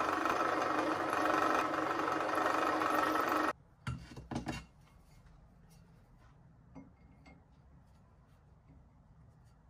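Bench drill press running with its bit cutting into a round metal disc, a steady noise that stops abruptly about three and a half seconds in. Then a few short metal clinks as the part is handled, and faint handling sounds over quiet room tone.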